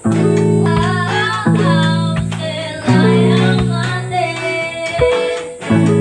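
Background song with guitar and a singing voice; the low chords change about every second and a half.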